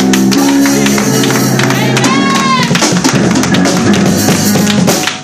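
Church band music swelling behind the preacher: sustained chords over drums and percussion, cutting off at the very end.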